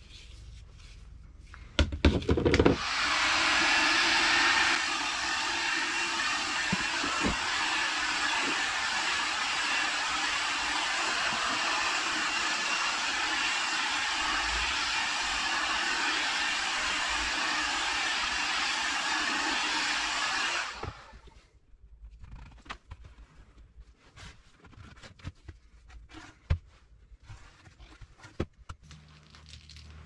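Electric heat gun running with a steady rushing blow and a low hum, heating the end of an orange PVC pipe; it stops abruptly about two-thirds of the way through. A few knocks of handled plastic pipe fittings come just before it starts, and faint handling clicks follow.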